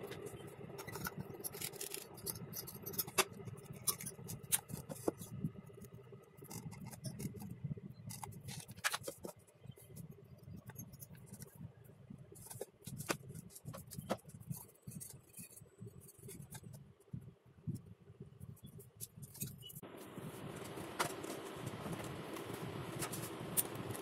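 Scattered light clicks, taps and scrapes of hands handling aluminium heat sinks, a cord and plywood panels of a small box. Near the end a steady hiss comes in under the clicks.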